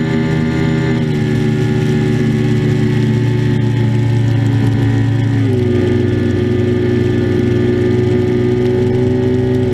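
Mercury 150 outboard motor pushing a Nitro Z7 bass boat at planing speed, heard close from atop the engine cowling: a steady engine drone over rushing wind and spray. Its pitch drops slightly about a second in and again about halfway through.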